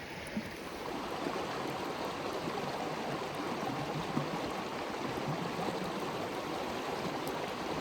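Steady, even rush of running water, like a stream.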